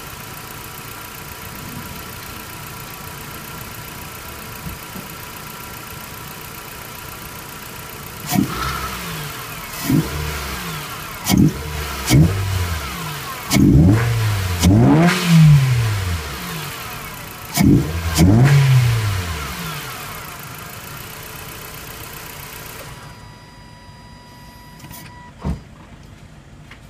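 2011 Nissan Juke's HR16DE 1.6-litre four-cylinder engine, fitted with a BMC carbon cold air intake and its stock exhaust, idling steadily and then blipped about eight times, the revs rising and falling each time, some in quick pairs. The engine sound drops away a few seconds before the end, and a single click follows.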